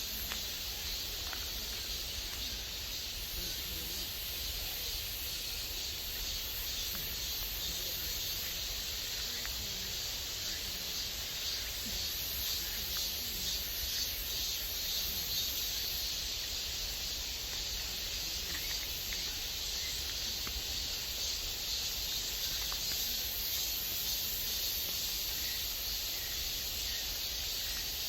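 Mountain stream water running over rocks: a steady, even rushing hiss.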